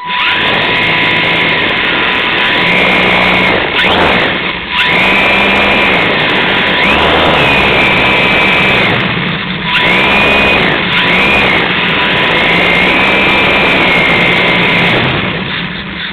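Motor of a small radio-controlled model, heard close up from the camera it carries, running with a high whine. It starts abruptly, and its pitch rises and falls several times, with brief dips about four and ten seconds in, before easing off near the end.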